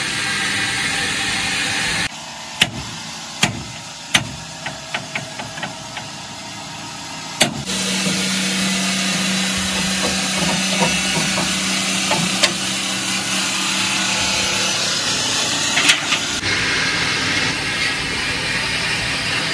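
Metalwork on a truck body in a workshop, heard in several cut-together bits. First a steady rushing hiss, then a quieter stretch of sharp metal knocks with a quick run of taps. Then the hiss again over a low steady hum.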